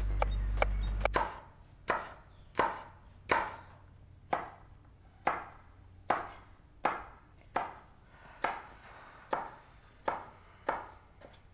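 Kitchen knife chopping vegetables on a wooden cutting board, a steady stroke about every three-quarters of a second. A low drone with quick light clicks stops about a second in, just before the chopping begins.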